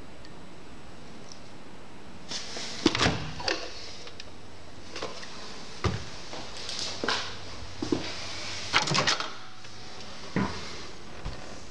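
Clicks and knocks of kitchen appliance and cupboard doors being handled, including a microwave door being opened: about a dozen short knocks scattered from about two seconds in, the loudest near the start of the run and about three-quarters of the way through, over a steady hiss.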